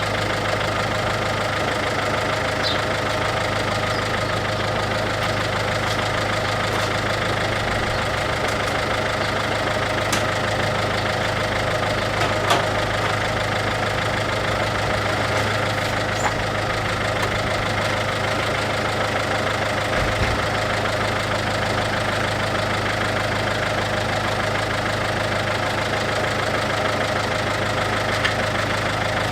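MINI R56's 1.6 HDi DV6 diesel engine idling steadily, warming up after its rebuild.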